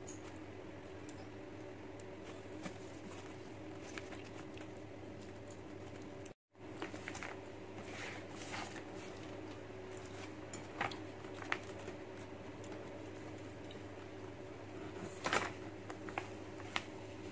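Mukbang eating sounds: soft slurping and chewing of short 'mouse noodles' (silver needle noodles), with scattered light clicks and taps at the bowl, a brief flurry of them about fifteen seconds in, over a steady low hum.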